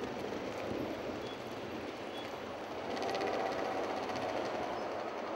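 Steady city traffic noise, growing a little louder about three seconds in, with a faint engine hum over it.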